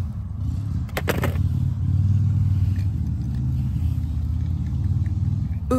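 Car engine running with a low, steady rumble, and a short clatter about a second in.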